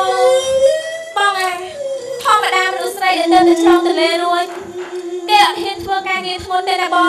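Khmer Bassac opera (lakhon basak) singing: a high voice sings a gliding, ornamented melody over a steady held accompanying tone, with sharp percussion strikes here and there.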